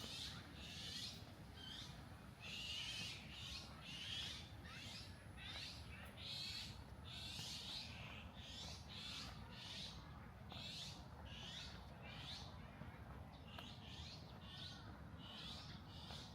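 Birds chirping: a steady run of short, high chirps, about one or two a second, over a faint low background rumble.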